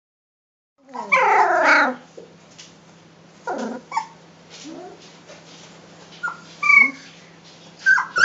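Three-week-old Rhodesian Ridgeback puppies whimpering and yipping as they play. A long, loud, wavering whine starts about a second in, followed by shorter, quieter yips and whimpers.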